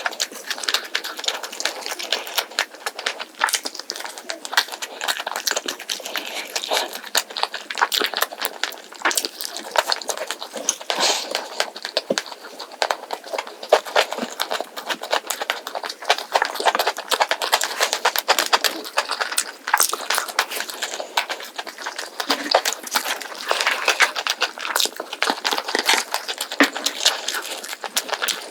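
Close-miked eating of a whole roast chicken with scorched rice: continuous crunching, crackling chews and wet mouth sounds, with dense small clicks throughout.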